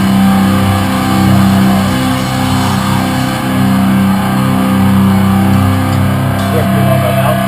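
Loud heavy rock music: distorted electric guitar holding sustained chords that change about once a second.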